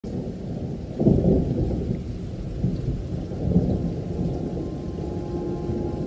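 Rain with a low, thunder-like rumble, swelling about a second in and again around three and a half seconds; a steady tone comes in near the end.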